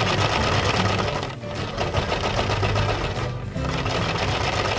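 Toy washing machine running: its small motor spins the drum with a fast, buzzing rattle that dips briefly twice.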